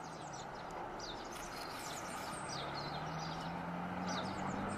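Birds chirping outdoors: scattered short, high, downward-sliding chirps over a soft background hiss and a faint low steady hum.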